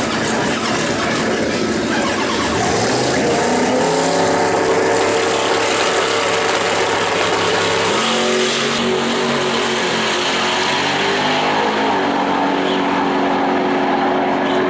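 Street Eliminator drag car's engine at the start line, its revs climbing about two and a half seconds in and held high and steady. About eight seconds in the pitch steps down suddenly, then the engine runs on steadily while the high hiss fades toward the end.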